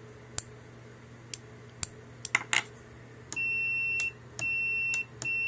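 Microswitch clicking as its lever is pressed and released, then a multimeter's continuity beeper sounding three times, a steady high beep of under a second each time the switch is held closed: the cleaned contacts are conducting.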